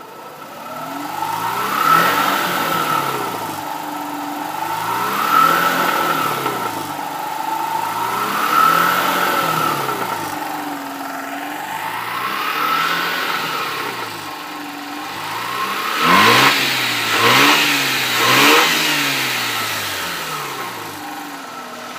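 Mazda RX-8's twin-rotor rotary engine revved out of gear: four slow revs that rise and fall back to idle, then three short quick blips of the throttle near the end.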